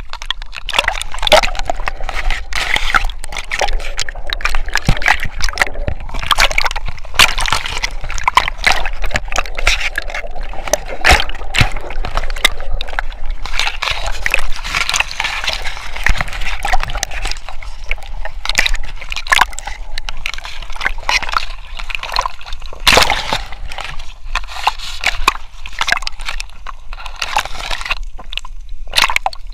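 Water sloshing and splashing right at a camera strapped to a swimming Weimaraner as it paddles and wades through reeds, with many short sharp clicks and scrapes as reed stalks brush past.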